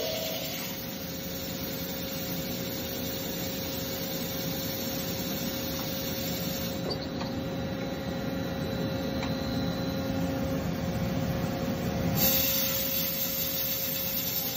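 Franklin CNC drill line running: a steady machine hum with a rough rubbing, grinding noise over it, which shifts slightly about twelve seconds in.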